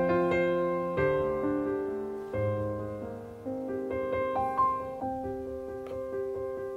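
Background piano music, single notes and chords struck and left to ring.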